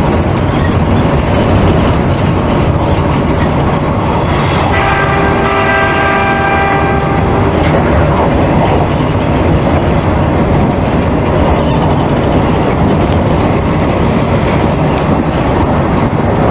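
Hanshin electric train running along the track, with continuous running noise. A single steady train-horn blast lasts about three seconds, starting a few seconds in.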